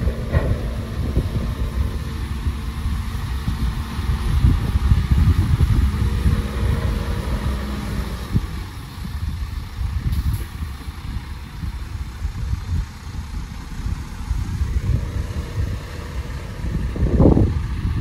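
Diesel engine of heavy earthmoving machinery running, a low rumble that rises and falls in loudness.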